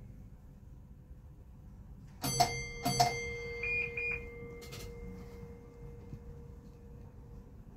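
A Class 455 train's on-board signal tones sound at the platform: two loud ringing electronic tones about a second apart, the second ringing on, then two short high beeps, over a low hum.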